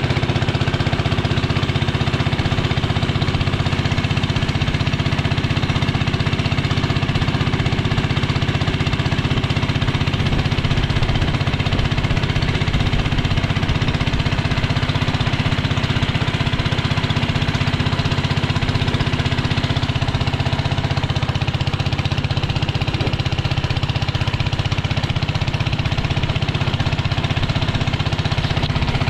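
Small engine running steadily at a constant speed with a rapid, even beat.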